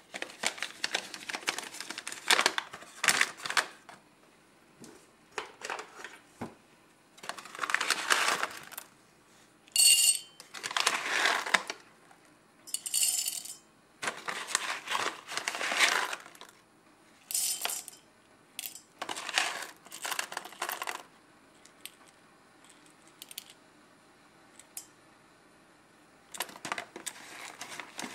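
Whole coffee beans poured in short spills from a paper bag into a stainless steel cup, rattling and pattering against the metal, with the paper bag crinkling between pours. About a dozen separate spills come with short pauses between them.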